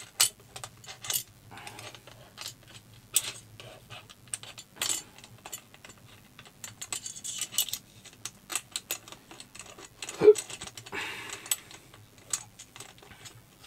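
Irregular light clicks, taps and rustling as a camera and a gimbal's metal quick-release mounting plate are handled and fitted together by hand, with one louder knock about ten seconds in.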